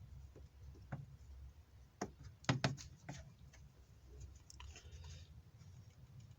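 Faint scattered clicks and light knocks of hand tools and metal parts being handled while working the oil filter loose, the loudest pair about two and a half seconds in, with a short hiss near five seconds.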